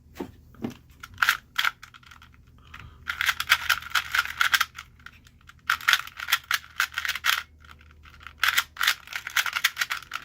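Plastic speed cube being turned fast during a timed solve: a rapid clicking clatter of the layers turning, in bursts of a second or two with short pauses between.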